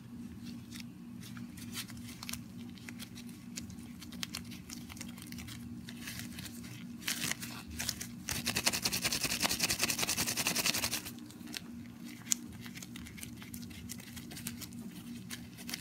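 Nitrile-gloved hands handling polymer clay: glove rubbing and crinkling with small scattered clicks, and a denser, louder run of rubbing for a couple of seconds past the middle as the clay snakes are rolled and twisted together. A low steady hum runs underneath.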